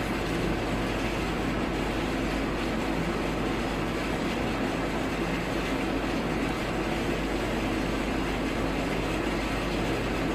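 Washing machine running its spin cycle: a steady, even noise with a low hum that does not change.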